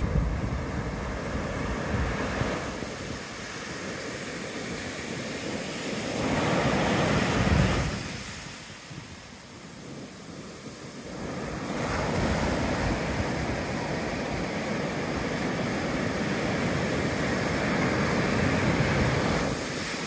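Ocean surf breaking and washing up a sandy beach. It swells to a loud crash about six to eight seconds in, eases off, then builds again into a steady wash. Wind rumbles on the microphone underneath.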